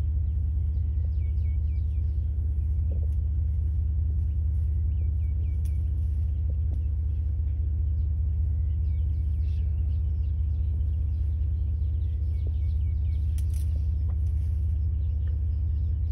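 A vehicle engine idling steadily with a low, even hum, while small birds chirp faintly in the background.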